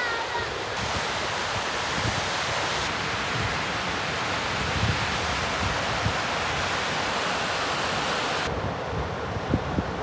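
Steady rushing white noise of river cascades on the Skógá above Skógafoss, with wind buffeting the microphone in a low, uneven rumble.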